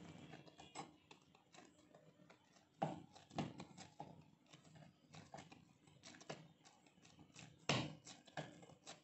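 Hand kneading soft, oiled wheat chapati dough in a ceramic bowl: irregular soft squishes and slaps, with a few louder knocks about three seconds in and again near the end.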